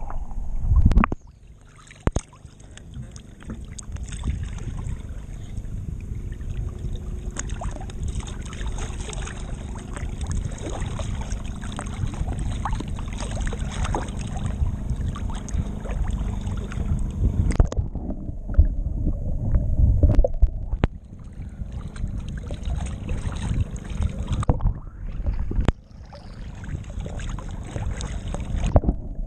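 Seawater sloshing and gurgling against an action camera held right at the waterline beside a sailboat hull: a dense, low, churning rumble with a hiss on top. It turns dull and muffled for a couple of seconds a few times, near the start, past the middle and near the end.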